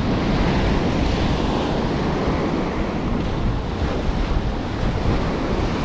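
Ocean surf breaking on the beach in a steady wash, with wind buffeting the microphone.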